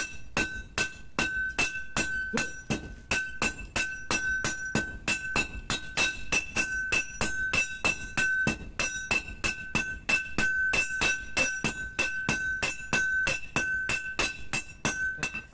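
Hand hammers and a sledgehammer striking a red-hot spring-steel blade on a steel anvil, about four to five blows a second in a steady rhythm, the anvil ringing at one clear pitch between the blows. The blade is being forged into a date-palm tapping knife.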